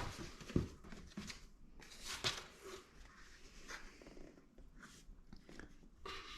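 Packaging being handled: short rustles and scrapes with a few light clicks and taps, the loudest rustle at the very start and another about two seconds in.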